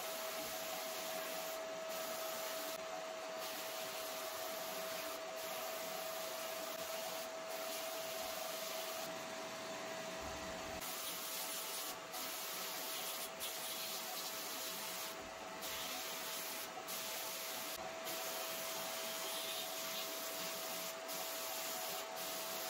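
Sandblast gun in a blasting cabinet, blasting rusty cast-iron scale parts with a steady hiss of air and abrasive, a thin steady whistle running through it. The hiss drops briefly a few times.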